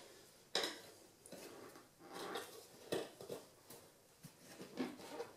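Metal tire irons clinking and knocking against a spoked aluminum dirt bike rim as the tire bead is levered on: a handful of scattered sharp clinks, the loudest about half a second in.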